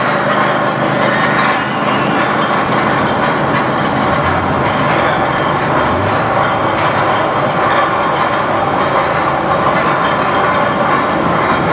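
Steel roller coaster train being hauled along the crest of its lift hill: a steady, loud mechanical clatter from the lift mechanism and the train on the track.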